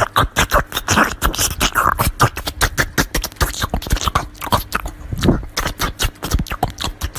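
A Pomeranian puppy chewing watermelon: rapid, irregular wet crunches and smacks, several a second.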